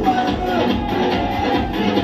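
Dance music playing loudly.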